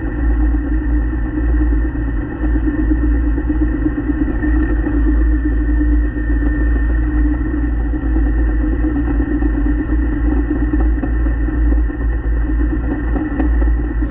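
Tank engine running steadily while the tank drives, a loud, unbroken low drone.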